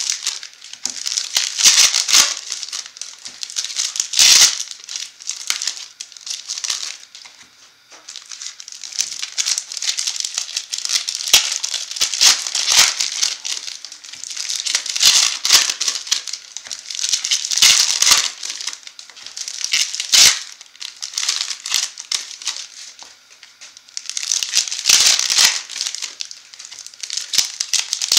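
Irregular crinkling and rustling of plastic and foil wrapping, with clicks and taps of cardboard, as sealed trading card boxes are opened and their foil packs taken out and handled.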